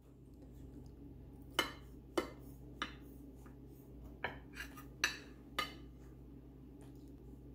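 Chef's knife cutting through corn bread, its blade clinking against the ceramic plate beneath: about seven sharp clinks over a few seconds.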